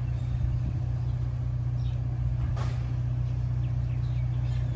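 Steady low hum of a running vehicle engine, with a single brief click about two and a half seconds in.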